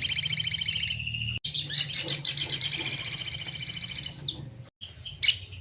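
A sogon bird singing: two long, fast, high-pitched trilled phrases, the first breaking off about a second in and the second following after a short pause and fading near the end.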